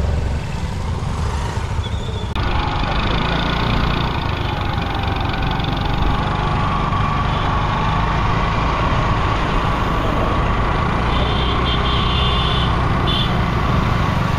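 Motor vehicles on a road: a scooter passes close by. About two seconds in the sound changes suddenly to a steady low rumble of motorcycle and car engines with road noise.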